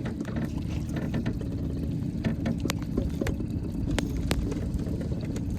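Raindrops ticking irregularly on a hard surface close by, over a steady low rumble.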